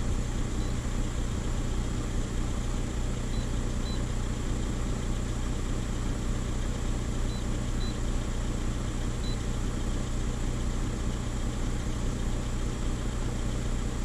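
VW Touran's 1.9 TDI four-cylinder diesel idling steadily, heard from inside the cabin.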